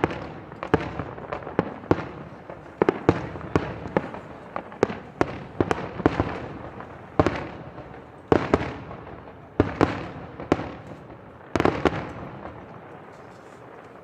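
Fireworks display: aerial shells bursting in quick, irregular succession, sharp bangs each followed by an echoing tail, several loud ones close together before the bangs stop about 12 seconds in.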